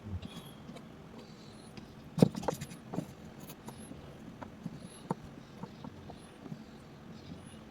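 Scattered light taps and clicks, with a few sharper knocks about two, three and five seconds in, over a faint hiss.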